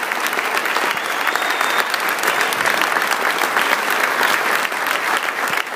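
Large crowd applauding: dense, steady clapping from many hands at once.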